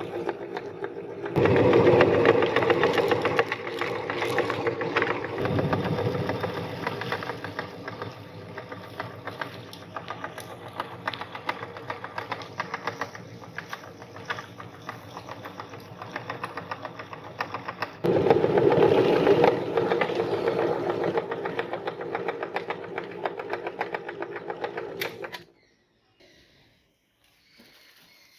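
Electric meat grinder motor running with a fast, steady rattle, grinding mini marshmallows. It gets louder twice, about a second in and again about two-thirds of the way through, then shuts off suddenly near the end.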